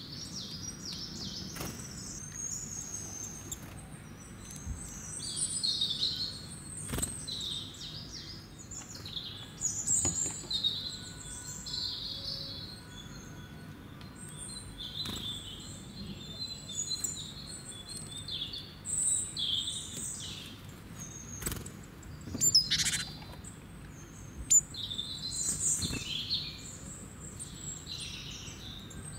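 Small birds chirping in many short, high calls throughout, over a faint low background hum. A few sharp clicks from handling the plastic battery holder and parts, the loudest about two-thirds of the way through.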